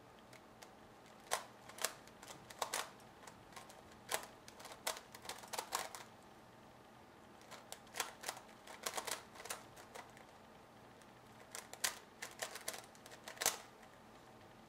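MF8 Megaminx being turned fast during a speedsolve: its plastic layers click and clack in quick runs of turns, with short pauses between the runs.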